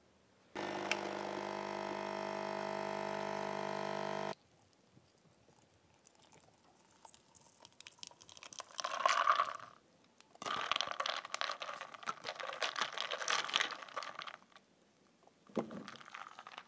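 A steady mechanical hum for about four seconds, then milk poured into a glass jar of iced coffee, then ice cubes rattling against the glass as the drink is stirred with a metal straw.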